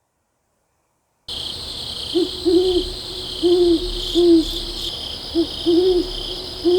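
An owl hooting: a series of short, low hoots, several coming in pairs, starting about a second in. Behind them runs a steady, high-pitched chirring of insects.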